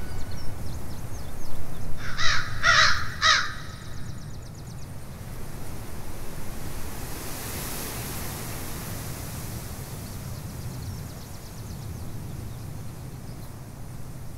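A crow cawing three times about two seconds in, over a steady low rumble of stormy ambience.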